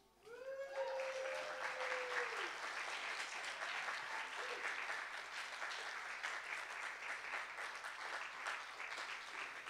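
Audience applauding at the end of a poem, a dense patter of clapping that starts suddenly and thins near the end. At the start one voice in the crowd holds a long cheer that falls off after about two seconds.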